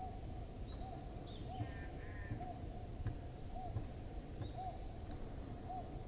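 A short, low call note repeated steadily about once a second over a low rumbling background, with a few sharp taps from the pileated woodpecker working at its excavated hole in a dead birch. A higher bird call chirps briefly about two seconds in.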